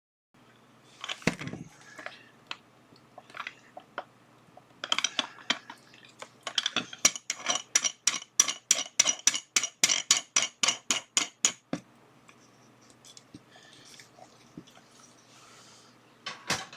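Small hardware being handled on a workbench: scattered clicks and knocks, then a run of about twenty evenly spaced sharp clicks, about four a second, that stops suddenly.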